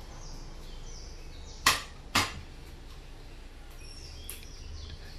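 Two sharp knocks of hard kitchen objects striking each other, about half a second apart, each with a brief ringing tail, and a fainter click a couple of seconds later.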